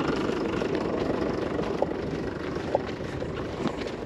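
A tractor engine running steadily, slowly growing fainter, with a few faint crunching steps in snow.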